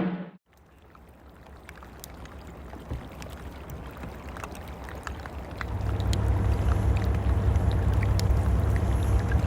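A boat under way on the water: water sloshing and splashing with scattered drips and clicks, and a low engine rumble that grows louder about six seconds in.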